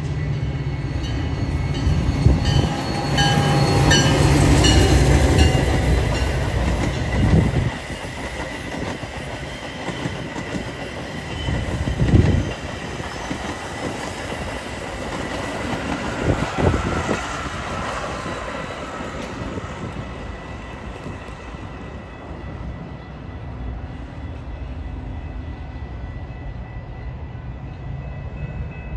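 Metra diesel locomotive passing close by, loudest in the first several seconds, then the bilevel commuter coaches rolling past with steady wheel rumble and a couple of heavy clacks over the rail joints before the train fades away.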